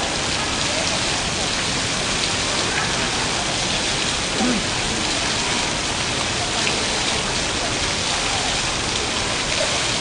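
Water-curtain fountain: many streams of water falling from an overhead frame and splashing down into the pool, a steady, even rush of splashing water.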